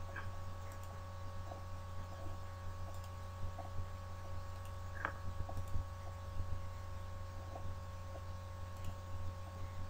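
Steady low electrical hum with several fixed higher tones over it, and scattered faint clicks; one sharper click comes about five seconds in.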